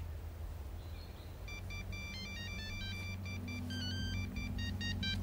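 Mobile phone ringtone: a fast electronic melody of short beeping notes, starting about a second and a half in and cutting off suddenly at the end, over a low steady drone.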